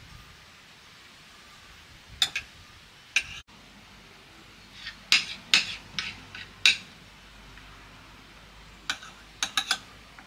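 A knife and fork clinking and scraping against a plate as food is cut, in scattered sharp clicks: a couple about two seconds in, a cluster of four or five from about five to seven seconds, and a few more near the end.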